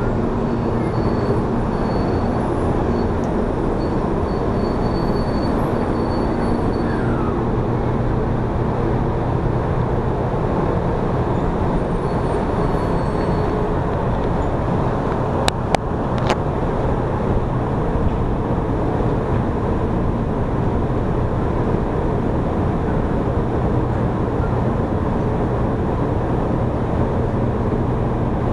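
Taiwan High Speed Rail 700T bullet train slowing to a stop at an underground platform and standing there: a steady rumble and hum with no let-up. A few sharp clicks sound about halfway through.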